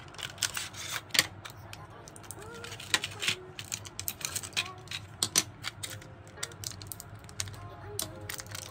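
Quick, irregular plastic clicks and taps as a clear acrylic nail tip stand and its metal tip holders are unpacked from a plastic bag and handled on a tabletop.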